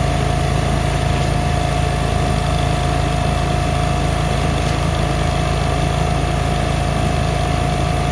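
An engine running steadily at constant speed, with a constant whine above its low rumble.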